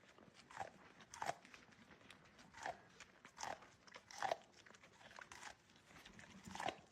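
A pet chewing something crunchy: about seven faint, sharp crunches, roughly a second apart or less.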